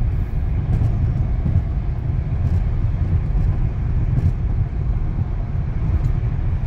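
Steady low rumble of a car's tyre and engine noise, heard from inside the cabin while driving at highway speed.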